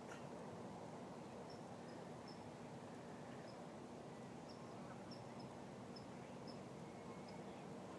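Quiet outdoor ambience: a steady low rumble of distant background noise, with about ten faint, short, high chirps from small birds scattered through it.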